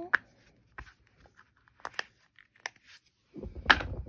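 Silicone pineapple pop-it fidget being pressed: a handful of sharp, scattered pops from its bubbles, then a louder rustling thump near the end as it is handled.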